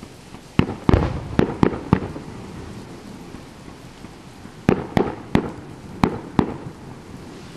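Fireworks shells bursting: two quick volleys of sharp bangs a few seconds apart, about five or six in each.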